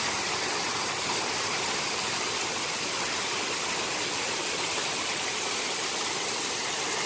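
Artificial waterfall running, thin sheets of water pouring off stone-faced terraces and splashing into a pool below: a steady rushing and splashing of falling water.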